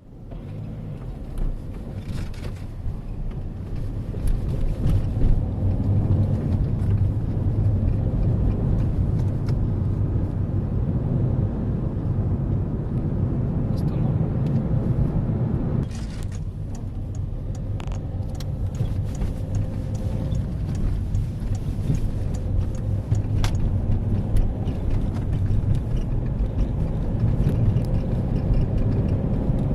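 Peugeot 3008 cabin noise while driving over bumps: a steady low road rumble with short, sharp creaks and clicks now and then. The squeak is one the owner traced not to the strut-mount bearings but to the overhead seatbelt-reminder panel creaking against the roof.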